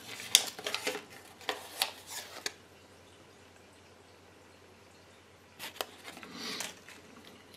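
Hands handling a folded paper collector leaflet and small plastic toy pieces on a table: a cluster of small sharp clicks and paper crackles in the first couple of seconds, then near quiet, then a few more clicks and a short paper rustle near the end.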